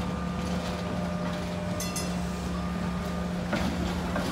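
SEPTA 1981 Kawasaki light rail vehicle running slowly on street track through a curved junction, with a steady low hum. A short high-pitched ring comes about two seconds in, and rougher wheel-on-rail noise builds near the end as the car works through the curve.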